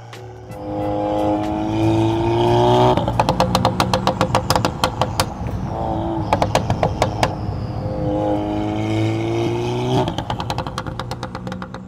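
Tuned VW/Audi MQB turbocharged four-cylinder car revving up with a rising pitch, then crackling and popping in a rapid string of sharp cracks from the exhaust as the throttle is released; the rev and crackle happen twice, with a shorter blip in between. This overrun crackle is the tune's crackle feature, which fires on lift-off above 3,000 rpm.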